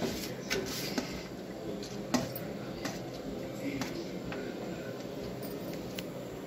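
Chopped onions dropped by hand into oil in a pan, with a faint steady sizzle and scattered light clicks and taps.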